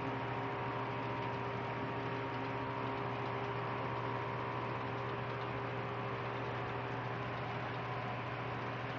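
A steady low hum with a few fixed tones over an even hiss, unchanging throughout.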